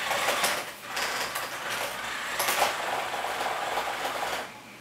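Tonka Bounce Back Racer radio-controlled toy car's electric drive motors whirring as it drives in spurts over a hardwood floor, easing off briefly about a second in and again near the end.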